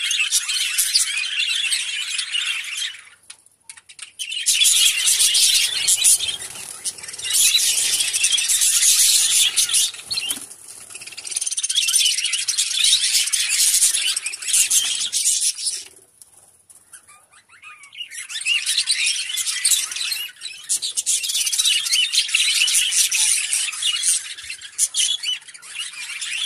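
A flock of budgerigars chattering and warbling together in a dense, high-pitched din, which breaks off twice for a second or two, about three seconds in and again past the middle.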